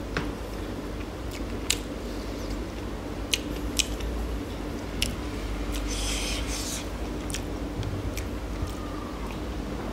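A person eating up close: chewing with sharp wet clicks and smacks of the mouth, roughly one a second, and a short rustle about six seconds in, over a steady low hum.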